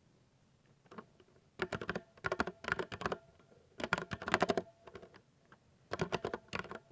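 Typing on a 60% mechanical keyboard: rapid key clicks in four short bursts with brief pauses between, starting about a second and a half in.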